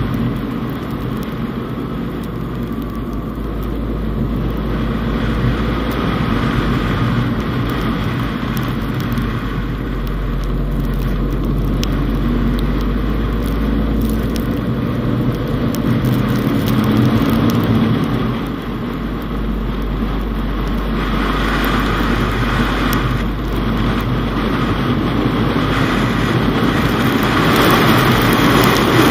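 Fiat Panda Cross driving on a snowy road: steady engine and tyre noise over a deep rumble, with the engine note shifting a little in pitch. The tyre hiss grows louder over the last several seconds.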